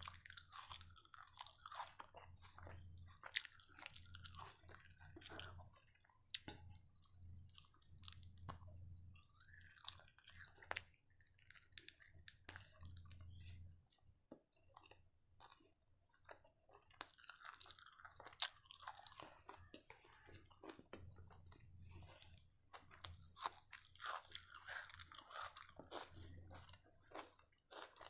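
A person biting and chewing crispy fried chicken kebab, with irregular crunches and mouth sounds and a short lull about halfway through.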